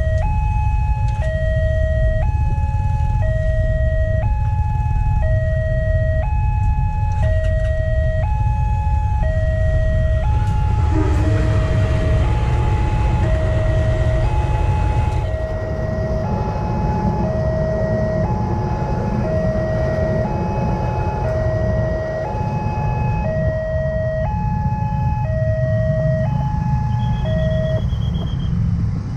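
Railway level-crossing warning alarm: an electronic two-tone signal alternating between a higher and a lower note about once a second, stopping shortly before the end. A loud steady low rumble runs beneath it.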